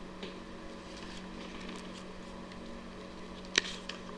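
Steady electrical hum of room tone with a few faint rustles, and one sharp click about three and a half seconds in.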